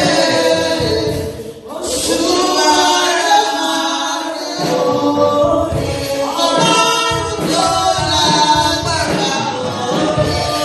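A choir singing a gospel song, voices holding long notes, with a brief break a little under two seconds in.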